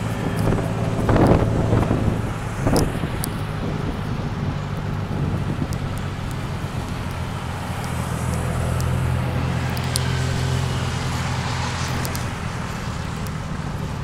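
Tuk-tuk's small engine running steadily while riding in the open three-wheel cab, with road and traffic noise around it. The engine note gets stronger about two-thirds of the way through, and a couple of short knocks are heard in the first three seconds.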